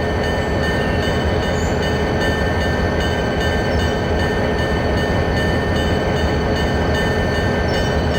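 Train running on the rails: a steady, unbroken rumble with a few faint high steady tones above it.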